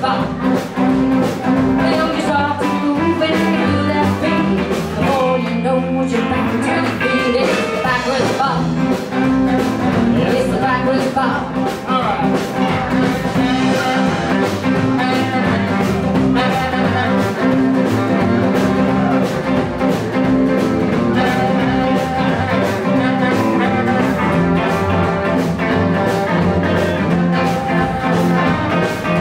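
Live blues band playing a 1950s-style number: electric and acoustic guitars, upright bass, drums and saxophone over a steady beat.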